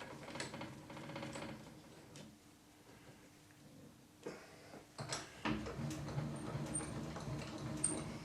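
Metal clicks and clunks of tooling being handled at a milling machine, most likely the 31/64 in drill being fitted in the chuck. Busier clatter from about five seconds in, over a faint steady hum.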